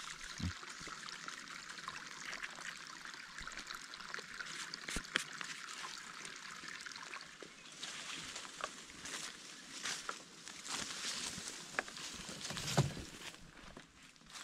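A small stream trickling over rock. About halfway through this gives way to footsteps crunching and rustling through dry leaf litter, with a sharper knock near the end.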